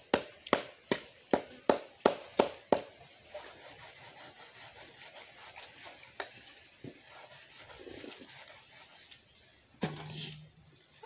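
A quick series of about eight sharp knocks, roughly two and a half a second, over the first three seconds, then only faint handling noise, with a short vocal sound near the end.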